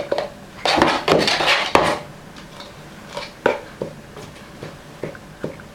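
Clattering and knocking of hard objects: a dense rattle about a second in, then scattered sharp knocks.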